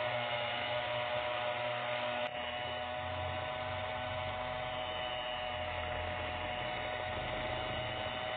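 Electric hand mixer running steadily, its beaters whirring through a liquid batter of eggs, sugar and oil in a stainless steel bowl. A brief click about two seconds in.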